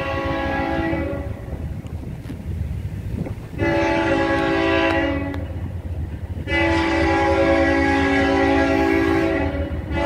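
Nathan K5HLL five-chime locomotive horn on an approaching CSX train, blowing in separate blasts. One blast ends about a second in, another starts about three and a half seconds in, and a long one starts about six and a half seconds in and keeps going.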